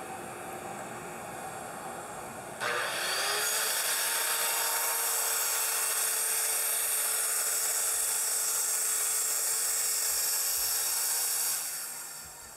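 Circular saw starting up with a quick rising whine a couple of seconds in, then cutting steadily through laminate flooring glued to plywood for about nine seconds before winding down near the end. Before the saw starts there is a steady machine hum.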